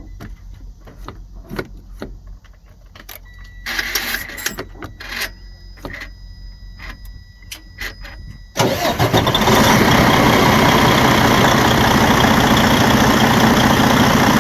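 Scattered clicks and a steady high electronic tone, then about eight and a half seconds in the Freightliner Cascadia's DD15 inline-six diesel starts suddenly and runs steadily and loudly. The engine starting shows that the newly fitted clutch switch is letting the truck crank.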